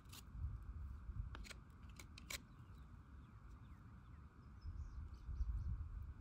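Small sharp clicks and scrapes from hand-working a thin wooden shaft, most of them in the first two and a half seconds, over a low uneven rumble.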